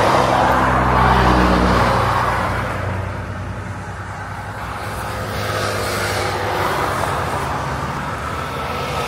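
A Toyota Hilux pickup driving past close by: engine and tyre noise loud for the first two seconds, then fading away. Another vehicle's road noise rises in the second half.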